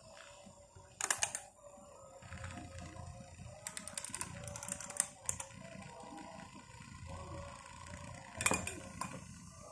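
Several small battery-powered toy fans running together, their motors and plastic blades giving a wavering whirr. Sharp plastic clacks come as the fans are handled and set down on the table: once about a second in, a cluster of clicks around four to five seconds, and the loudest knock near the end.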